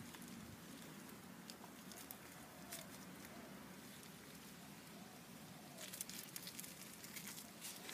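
Faint handling sounds of fire-lighting materials: scattered light clicks and soft rustling, busier near the end.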